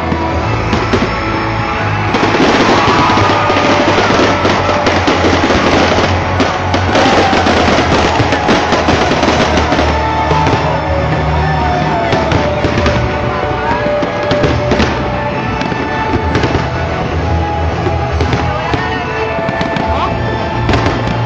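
Fireworks display going off in rapid, dense pops and crackles over loud show music; the crackling thickens about two seconds in and carries on.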